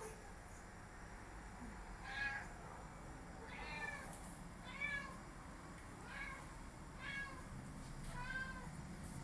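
A domestic cat calling at a gecko it is watching on the wall: about seven short, high meows, roughly one a second.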